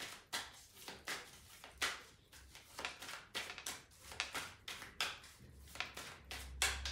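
A deck of tarot cards being shuffled by hand: a quick, irregular run of soft slaps and clicks as the cards are worked through.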